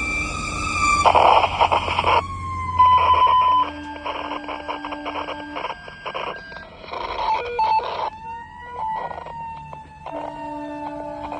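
Fire engine's emergency siren sounding while responding, its tone sliding slowly in pitch, with loud harsh blasts breaking in over it during the first few seconds and more briefly later on.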